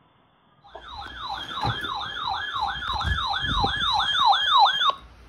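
Weather radio's electronic siren alarm alerting to an incoming warning: a wailing tone that sweeps down in pitch about two and a half times a second. It starts about a second in and cuts off shortly before the end.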